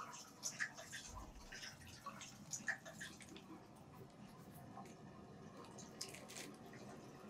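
Faint water dripping: single drops at uneven intervals, coming thicker in the first few seconds and sparser after, over a low steady hiss.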